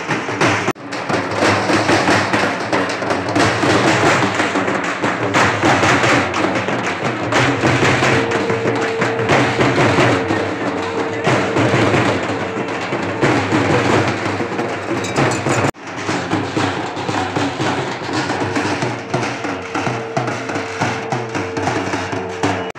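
Halgi frame drums beaten with sticks in a fast, steady rhythm. It breaks off suddenly twice, less than a second in and about two-thirds of the way through. A held note sounds over the drumming for a few seconds in the middle and again near the end.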